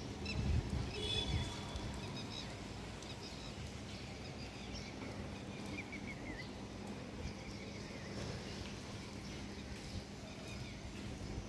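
Outdoor ambience: birds chirping now and then over a steady low hum. A low rumble, the loudest part, fills the first second or so.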